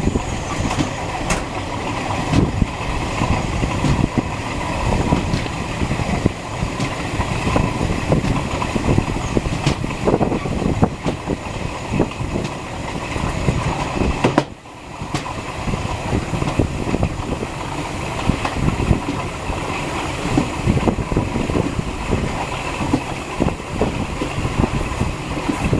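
Passenger train running on the rails: a steady rumble with irregular wheel clatter and clicks. The sound drops away sharply for a moment about halfway through, then returns.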